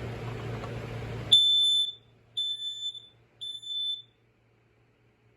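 Kidde dual-sensor smoke alarm sounding its test signal: three high-pitched beeps of about half a second each, in the temporal-three alarm pattern. A steady hiss before it cuts off suddenly as the first beep starts, about a second and a half in.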